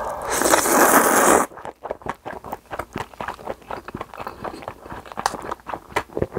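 A person slurping a mouthful of bibim naengmyeon noodles in one loud, rushing slurp lasting about a second and a half, then a run of quick short clicks and smacks of chewing.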